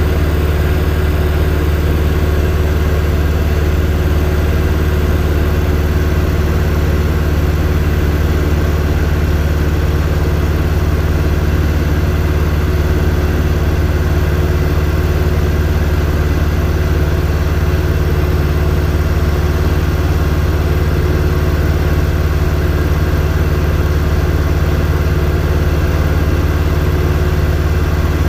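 Robin DR400 light aircraft's piston engine and propeller running steadily in level flight, heard from inside the cockpit: an unchanging loud drone with a constant low hum.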